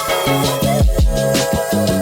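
Background music with a steady beat: a deep kick drum about every half second under bass notes and higher instruments.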